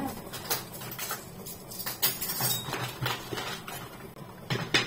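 Kitchen utensils and a plastic cutlery tray being handled on a counter: a scattered series of light clinks and knocks, with a couple of louder ones near the end.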